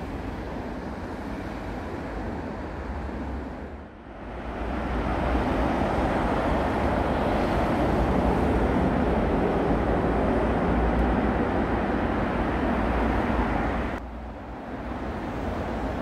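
Steady city road traffic: a continuous rush of cars passing on a multi-lane road. It dips briefly about four seconds in, comes back louder, and drops back abruptly near the end.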